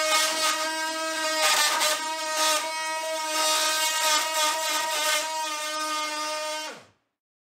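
Cordless oscillating multi-tool running at a steady buzzing pitch, its blade cutting between a wooden 1x3 strip and drywall, with rasping bursts as it bites in. Near the end the motor winds down, falling in pitch, and stops.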